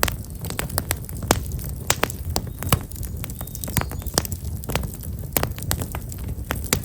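Black locust firewood burning in an open campfire, crackling with many irregular sharp pops over a steady low rumble of the flames.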